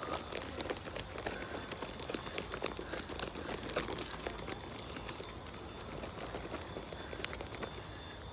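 Footsteps on a dirt forest trail with rustling and knocks from a handheld camera while walking, and insects calling in a few steady high tones behind.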